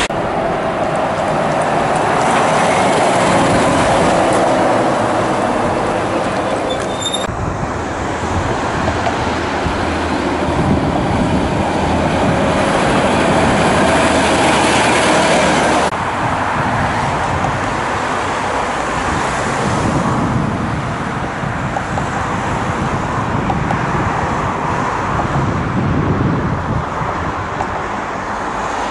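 Heavy diesel trucks driving past in street traffic, with engine and tyre noise. There are three separate stretches, with abrupt changes about 7 and 16 seconds in. The middle stretch is a DAF CF concrete mixer truck.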